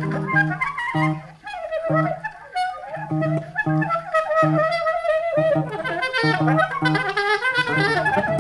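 Improvised free-jazz duo: a soprano saxophone plays fast, restless lines over short low guitar notes repeated two or three times a second.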